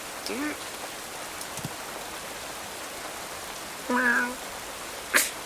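Steady rain hiss, with a brief cat mew about four seconds in and a sharp click near the end.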